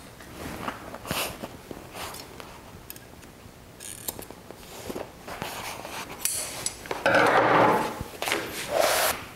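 Large upholstery shears snipping alignment notches into the edge of a grey upholstery panel: a series of separate short blade snips and clicks. About seven seconds in, a louder rustling and flapping as the cut sheet is lifted and handled.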